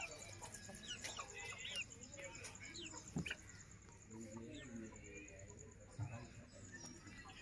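Birds chirping and calling: many short, quick chirps scattered throughout, with faint voices in the background.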